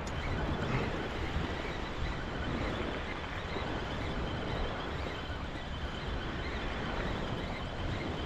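Steady rushing noise, mostly wind buffeting the microphone, with a low rumble and no distinct events.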